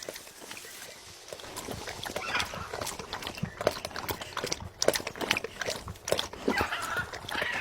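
Parrot drinking coconut water: a run of irregular wet clicks and taps from its beak and tongue, with a short scratchy call about two seconds in and again near the end.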